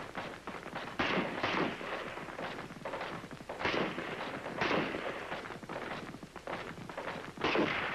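M14 rifles (7.62 mm NATO) firing single shots of slow fire on a firing line, several rifles going off at irregular intervals, each crack followed by a short echo. The loudest shots come about a second in, twice near the middle and once near the end.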